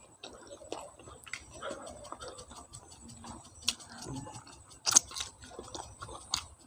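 Close-miked eating: chewing with irregular wet mouth clicks and lip smacks, one sharp loud smack about five seconds in.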